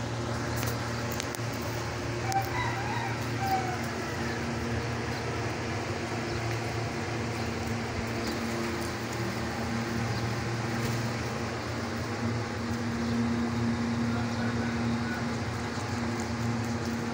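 A rooster crowing briefly about two to three seconds in, over a steady low hum.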